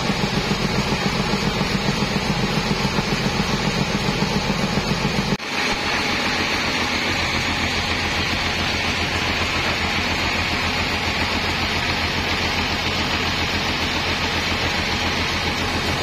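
Bandsaw mill running, a loud pulsing engine-like drone. About five seconds in the sound changes abruptly to a steadier drone with a hiss as the band blade cuts through a teak beam.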